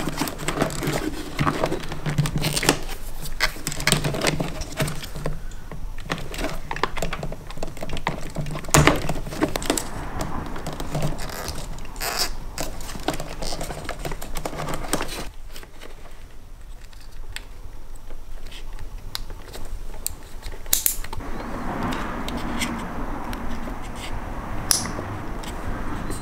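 Wires and plastic connectors being handled at a car's fuse box: a bundle of wires rustling and scraping, with many small irregular plastic clicks as connectors and fuse-box covers are pushed and clipped into place.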